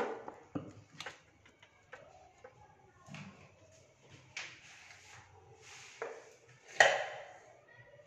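Hands handling painting supplies on a desk: a few sharp knocks and clicks, the first and one of the loudest right at the start, then several short rustling scrapes, the loudest about seven seconds in.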